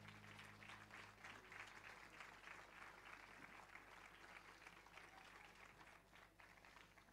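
Faint audience applause, a dense patter of hand claps that thins out near the end. The last sustained notes of the music die away in the first second or so.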